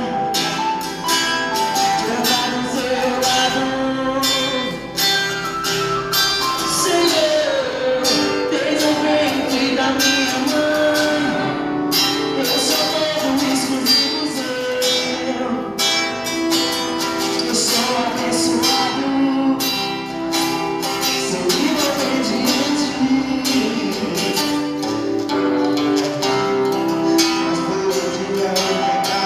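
Live church band playing a worship song, with a voice singing over the instruments and steady percussion.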